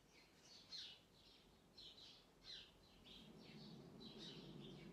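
Faint bird chirping: a steady run of short, falling high chirps, about three a second. A low, even background noise comes in about three seconds in.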